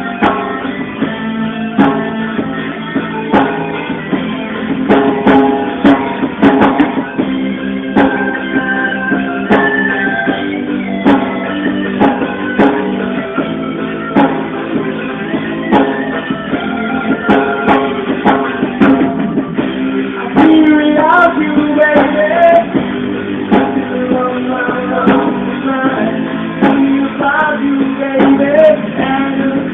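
Live band music: guitar and drum kit keeping a steady beat under held chords, with a lead melody line that bends in pitch starting about two-thirds of the way through.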